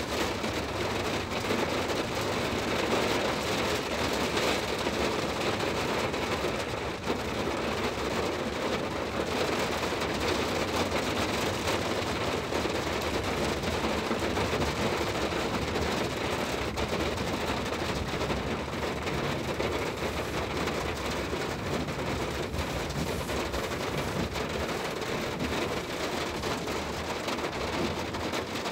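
Steady rain falling on a car's roof and windshield, heard from inside the cabin, with the wet road and running car beneath it.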